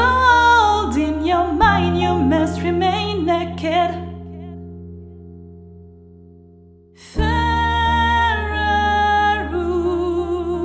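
Female voice singing over acoustic piano chords. The music fades down about four seconds in, then a new piano chord and a long, wavering sung note come in about seven seconds in.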